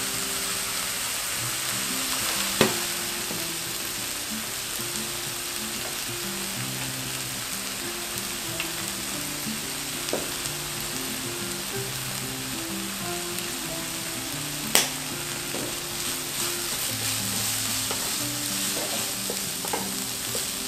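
Diced tofu puffs and vegetables sizzling steadily as a wooden spatula stirs them in a nonstick wok, with a sharp knock of the spatula on the pan about two and a half seconds in and again about fifteen seconds in, and a few lighter taps.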